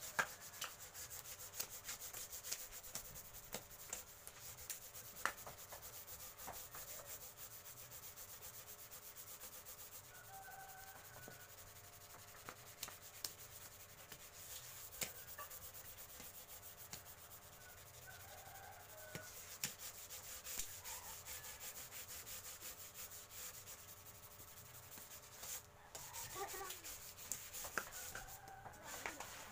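Hand-sanding plywood with sandpaper: a long run of quick, scratchy back-and-forth strokes, with a few sharper taps.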